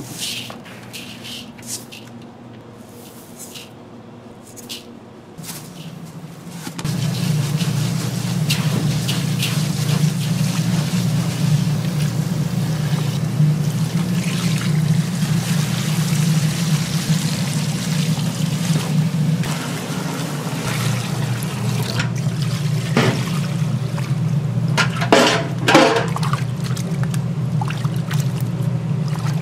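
Water running steadily, starting about seven seconds in, with a few knocks and clatters near the end.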